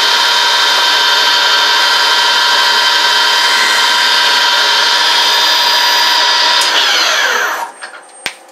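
Harrison M250 lathe running under power with a steady whine of several tones while boring out a steel part. About seven seconds in the spindle is switched off and the whine falls in pitch as it spins down, followed by a single sharp click.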